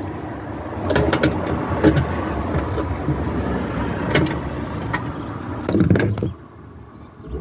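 Scattered clicks and knocks of tools and latch parts being handled at a car's liftgate, with a short quick run of clicks about a second in, over a steady background noise that drops away about six seconds in.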